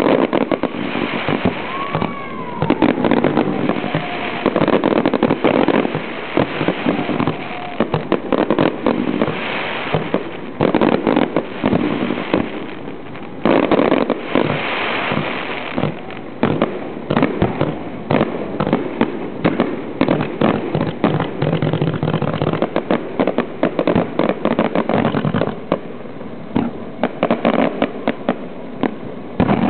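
Fireworks display going off in a dense, continuous run of bangs and crackles, the volleys coming in quick succession with a short lull about thirteen seconds in.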